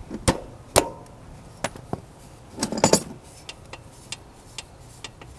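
Metal clinking and knocking of tools and parts during motorcycle rear-wheel removal: a handful of sharp separate clinks, with a quick cluster about halfway through and lighter ticks after.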